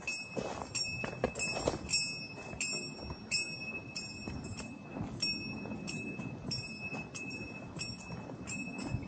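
Small metal bell jingling with each swing of movement, about twice a second at uneven spacing, over a low steady rustling noise.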